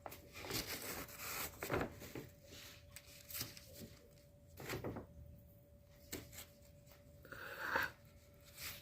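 Paper bag rustling and crinkling in irregular bursts as a cat plays with it, over a faint steady hum.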